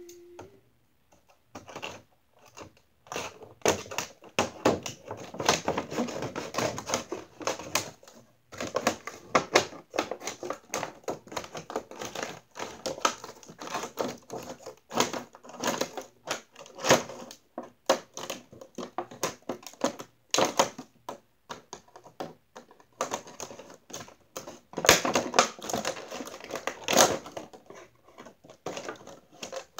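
Plastic and cardboard doll packaging crinkling and crackling with many irregular clicks as it is handled and pulled apart, with scissors cutting at it near the end.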